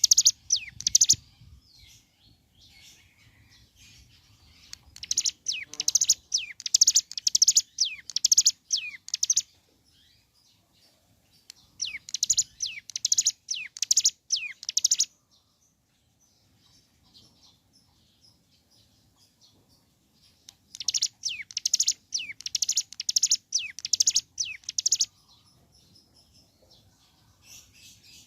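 Ciblek gunung, a small prinia, singing gacor: four bursts of fast, high, repeated notes, each lasting a few seconds, with pauses of a few seconds between them.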